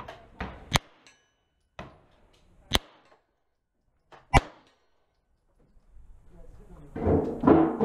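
Three single 9mm pistol shots, sharp and short, roughly two seconds apart, fired slowly one at a time. A louder stretch of noise follows near the end.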